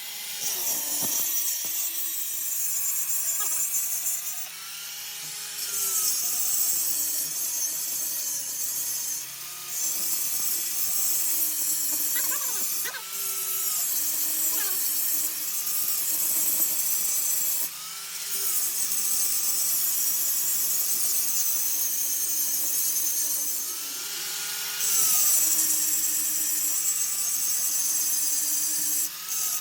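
Power tool working a workpiece: a continuous hiss with a whine that rises and falls as the load changes, broken into stretches every few seconds.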